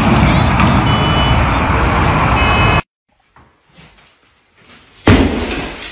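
Loud, steady wind noise buffeting a phone microphone, cut off abruptly about three seconds in. After a near-silent pause, a sledgehammer strikes a broken plaster wall about five seconds in: a heavy thud that trails off as it dies away.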